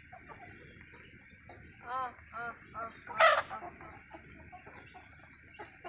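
Chickens clucking: three short calls that rise and fall in pitch about two seconds in, followed by a loud, harsh squawk.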